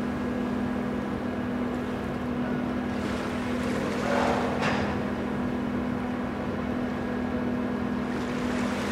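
Berthed ferry MV Salish Orca running with a steady low hum. Small waves wash against the shore now and then, most clearly about four seconds in and again near the end.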